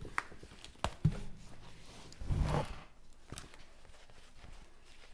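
Handling noises: a few sharp knocks and clicks, a dull thump about a second in, and a brief rustle about two and a half seconds in, as the canvas and camera are moved about.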